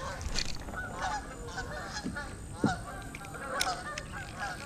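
A flock of birds calling, many short honking calls overlapping and repeating, with a couple of soft knocks in the middle.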